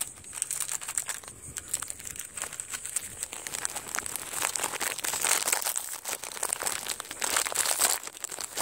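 Cellophane wrapper of a packet of peanut-butter sandwich crackers crinkling and crackling by hand as the crackers are crushed and crumbled out, a dense irregular stream of crackles.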